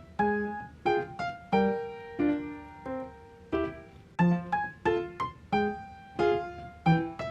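Background music: a light piano tune of short struck notes, about two or three a second, each fading away.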